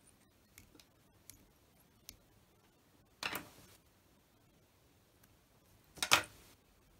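Small handling noises at a fly-tying vise: a few soft clicks, then two short scraping rustles about three seconds and six seconds in, the second one the loudest.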